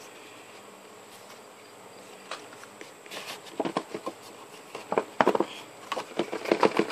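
Phone packaging being handled: a faint hiss, then from about two seconds in a growing run of crackles and clicks from cardboard and plastic.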